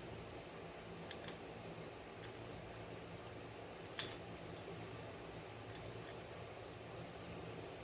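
Small metal starter-motor parts clinking as they are handled on a workbench: two light clicks about a second in and one sharper clink about four seconds in, over a faint steady low hum.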